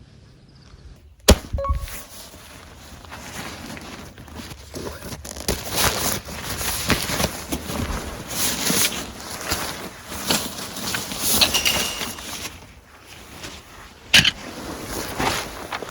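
A single sharp thunk about a second in, then irregular rustling and light knocking as camping gear is handled, with another sharp click near the end.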